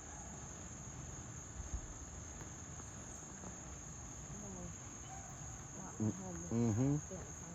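Steady high-pitched chorus of insects trilling without a break, with a brief low voice-like sound about six seconds in.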